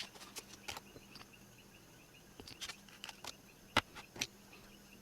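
Scattered light clicks and taps of small nail-art tools and polish bottles being handled, the two sharpest about three-quarters of the way through, over a faint steady hum and faint rapid chirping in the background.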